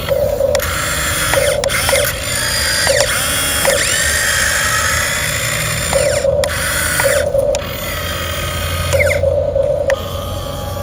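Huina RC model excavator's electric motors and gearboxes whining in repeated short spurts as it digs, the pitch sliding up and down as each movement starts and stops.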